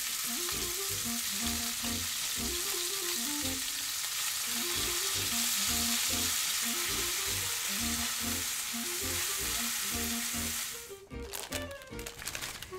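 Cubes of beef sirloin sizzling in olive oil in a frying pan, stirred with a spatula; the sizzle stops suddenly near the end. Background music with a steady beat plays underneath.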